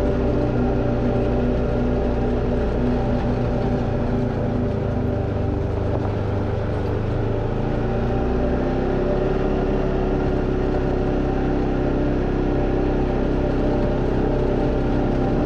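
Off-road vehicle engine running steadily as it drives along a dirt trail, its note shifting slightly about eight seconds in.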